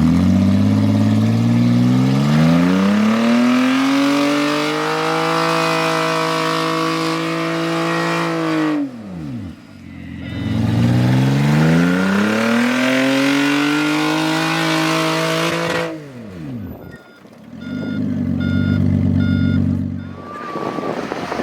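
Off-road 4x4 engine revving hard under load: it climbs, holds high for several seconds and then drops away, twice, then runs at a steadier lower pitch near the end.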